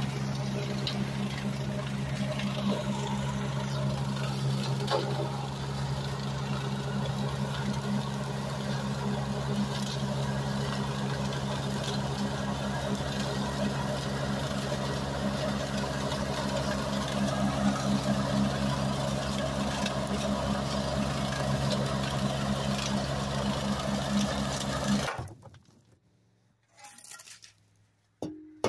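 A small engine running steadily at an even speed, with a fast regular pulse, that stops about three seconds before the end, leaving near silence apart from a short sound just before the end.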